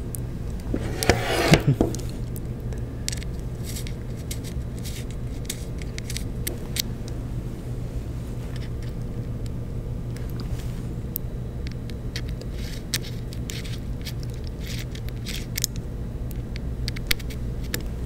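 Steady low room hum with scattered small clicks and taps as tiny M2 bolts, nuts and washers are fitted to fasten an end-stop switch to a 3D printer's plastic frame; a brief louder sound about a second in.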